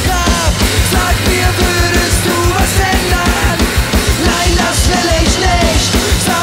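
Punk rock band playing live: a fast, driving drum beat with distorted electric guitars and bass, and a melody line of held and bending notes over it.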